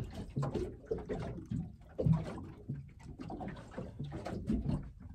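Water lapping and slapping against the hull of a small fishing boat, in irregular uneven bursts.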